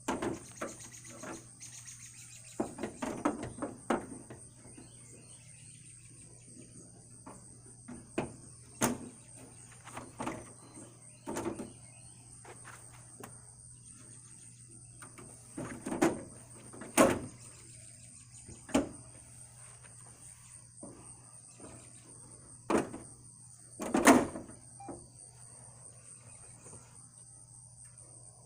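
Scattered clunks and knocks of parts and tools being handled while a pickup grill is fitted, the loudest a little past halfway and near the end, over the steady chirping of crickets.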